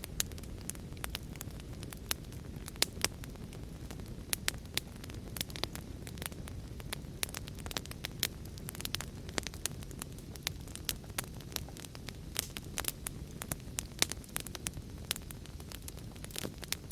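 Wood fire burning with a steady low rumble and frequent sharp crackles and pops at irregular intervals, several a second.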